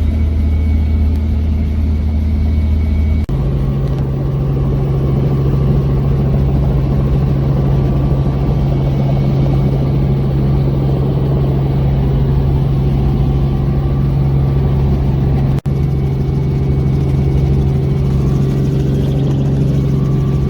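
Helicopter in flight, a loud steady engine and rotor drone. Its pitch jumps up abruptly about three seconds in, and it cuts out for an instant about three-quarters of the way through.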